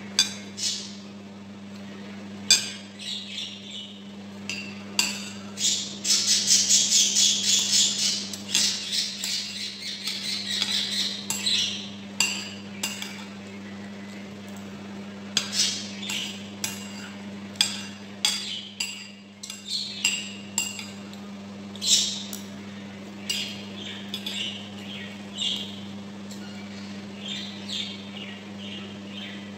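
Metal spoon clinking and scraping against a ceramic bowl while eating, in sharp separate clicks with a quick run of them about six seconds in. A steady low hum runs underneath.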